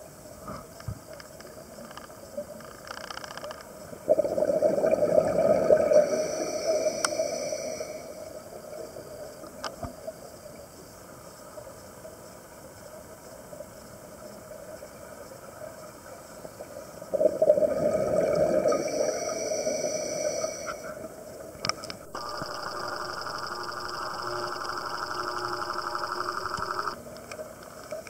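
Scuba diver's breathing through a regulator underwater: two long bubbling exhalations, about four seconds in and again around seventeen seconds, then a steady hiss with a faint whine for several seconds near the end.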